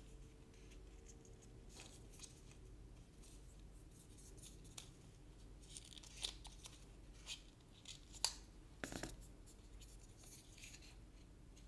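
Faint rustling, scratching and small clicks of a coiled white USB-C cable and its paper band being turned over in the hands, with a few sharper ticks around six and eight seconds in.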